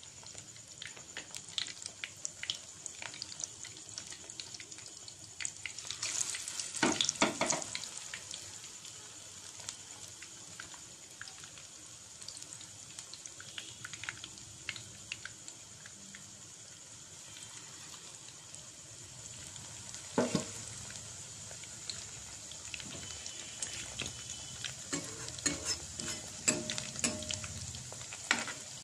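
Battered ridge gourd slices deep-frying in hot oil: a steady sizzle full of crackles, surging louder about a quarter of the way in and again about two-thirds through as more battered pieces go into the oil. Near the end, clicks of a metal spatula in the pan.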